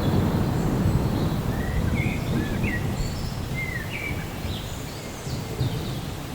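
Low rumble of thunder rolling and slowly fading, with a bird chirping a string of short calls in the middle.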